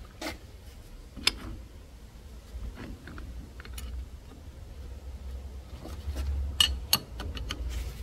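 Scattered sharp metal clicks and taps as pliers and a gears actuator shaft are handled, the loudest about a second in and two close together near the end, over a low background rumble.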